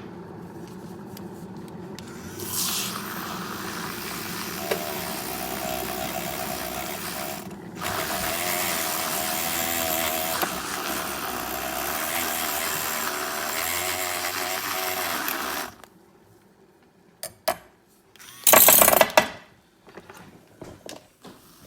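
Handheld battery milk frother's small motor whirring as its whisk froths cold milk. It steps louder about two and a half seconds in and again about eight seconds in, dips briefly just before that, and cuts off about sixteen seconds in. A few clicks and one short, loud rattle follow near the end.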